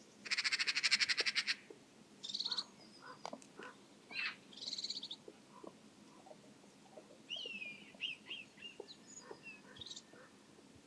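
Birds calling: a loud, harsh rattling call lasting about a second, then shorter scratchy calls and a few sliding, whistle-like chirps.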